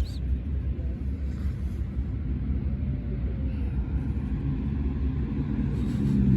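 Steady low outdoor rumble, like traffic or wind noise, with a faint brief high chirp at the very start.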